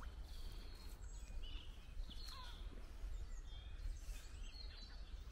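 Outdoor ambience: several short bird chirps and calls over a low, steady rumble.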